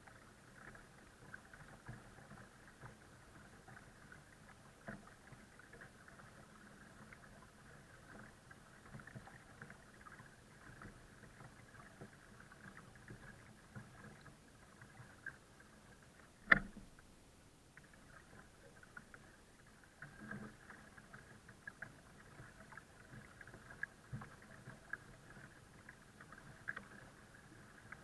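Faint steady running of the towing boat's motor with light water splashes and crackles, heard from on board. A single sharp knock a little past halfway, after which it goes quieter for a few seconds.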